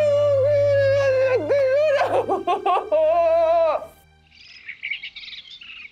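Sad background music: one held, wavering melody line over a low drone, with a quick run of ornaments midway, fading out about four seconds in. Brief birdsong chirps follow near the end.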